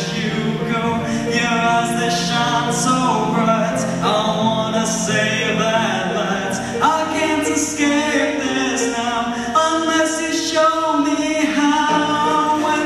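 Young male voice singing a pop ballad solo through a microphone, over sustained backing chords.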